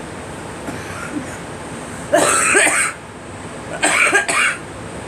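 A girl coughing in two short fits, the first about two seconds in and the second near four seconds, each a quick run of several coughs.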